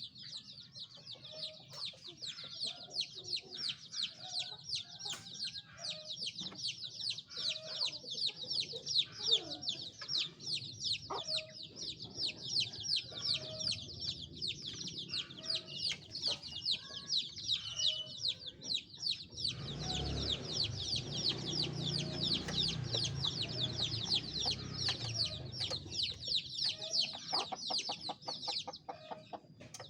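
Domestic chicks peeping without pause, rapid high falling peeps several a second, calling for the mother hen, with short low clucks underneath. About two-thirds of the way in, a low rumbling noise joins for several seconds, and the peeping stops just before the end.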